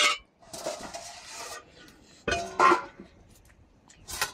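Scraping and rubbing: a sharp knock at the start, about a second of rasping, then two louder clattering knocks a little over two seconds in and another near the end.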